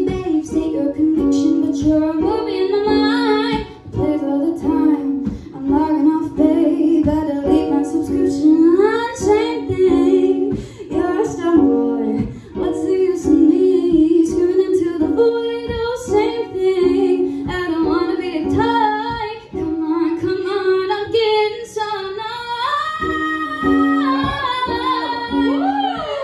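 A woman singing an original song live, accompanying herself on a strummed small acoustic string instrument.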